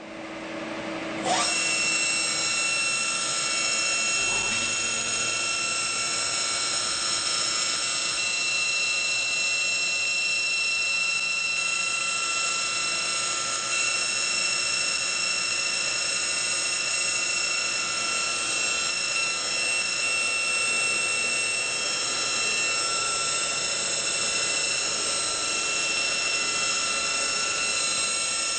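Degen TBH-1000 deep-hole drilling machine running as it drills metal, making a steady high-pitched whine of several tones. It comes up to full level about a second in.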